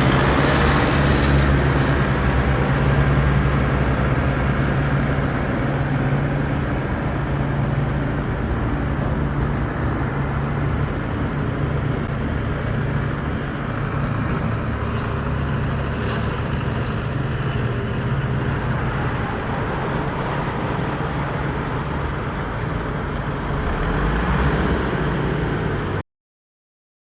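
Radio-controlled toy construction vehicles running: a steady mechanical whir with a low hum, cutting off suddenly about a second before the end.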